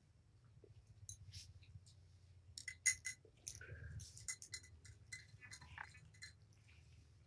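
Kittens and their mother cat eating from small food bowls: scattered clicks and clinks of teeth and food against the bowls, with chewing, loudest about three seconds in, over a steady low rumble.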